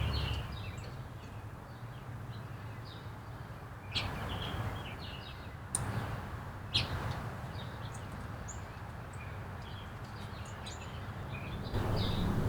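Small songbirds chirping and twittering in short, scattered calls over a steady low background rumble, with three sharp clicks about four, six and seven seconds in.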